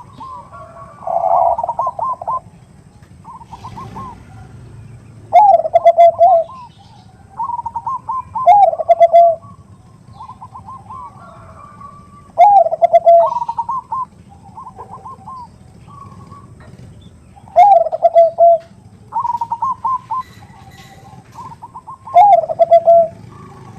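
Zebra doves (Bangkok-type perkutut) cooing over and over: each phrase is a quick run of short stuttering notes followed by a loud, drawn-out falling note, about every four to five seconds, with quieter runs of notes in between.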